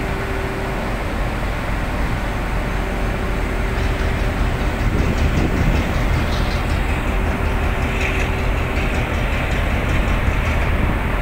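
Steady low rumble of a ship's engines, with a faint steady hum running through the first part and light clicking later on.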